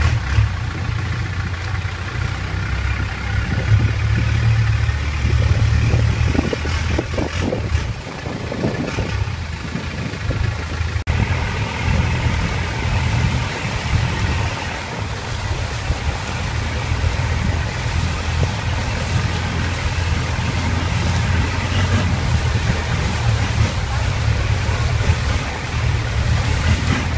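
Long-tail boat engine running steadily under way, with water noise; the loudness dips briefly about eight seconds in.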